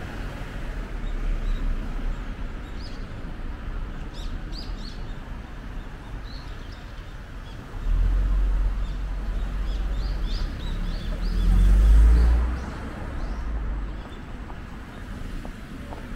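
Small birds chirping in short high calls over street background noise. A low rumble comes in suddenly about halfway through and is loudest a few seconds later.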